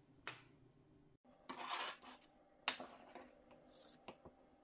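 Scissors being handled and cutting through the ends of a T-shirt-yarn tassel: a handful of faint, separate snips and clicks.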